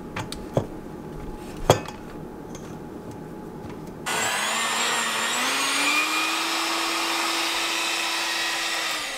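A couple of light clicks as batter is scraped off the beaters with a spatula. About four seconds in, a Hamilton Beach electric hand mixer starts up: its motor whine rises in pitch over a second or two, then runs steadily as it beats thick cake batter, and stops near the end.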